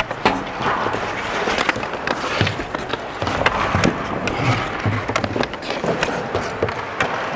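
Ice skates carving and scraping on rink ice, with repeated sharp clacks and knocks of hockey sticks and bodies against the boards, picked up close by a microphone worn by a skating player.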